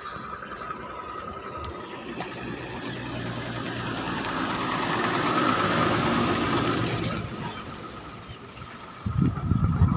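A motor vehicle passes by: a rushing engine and road noise that swells over a few seconds and fades away. Near the end comes a burst of loud low rumbling on the microphone.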